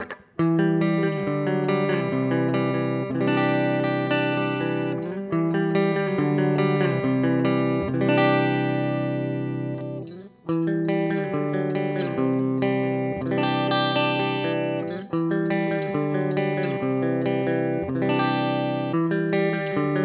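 Electric guitar with overdrive playing a chord riff on a History Les Paul-style guitar. The same phrase is played twice, with a cut about ten seconds in: first through a Seymour Duncan JB bridge pickup, then through the guitar's stock History pickup.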